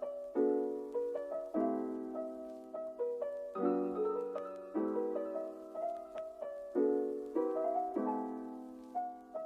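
Soft background piano music, with a new chord struck about every second and fading away.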